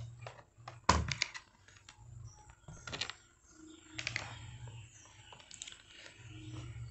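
Scattered clicks and taps of a hand handling a laptop as its lid is opened and it is switched on, with one sharp click about a second in.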